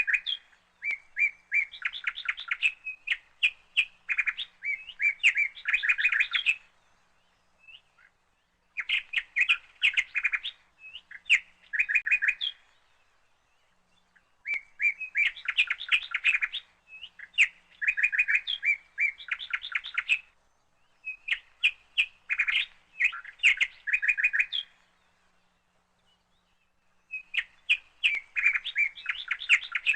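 Bird song in bouts of rapid, chattering notes a few seconds long, broken by short pauses.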